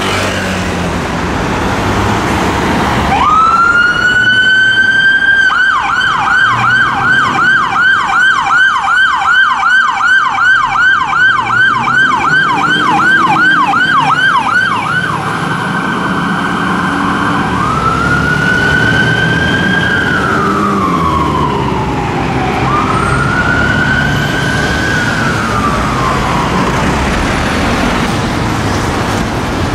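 London Fire Brigade Scania turntable ladder's two-tone electronic siren switching on about three seconds in: it rises, goes into a fast yelp of about three sweeps a second for some ten seconds, holds one tone briefly, then gives two slow rising-and-falling wails before stopping. Under it the appliance's diesel engine pulls away with road noise.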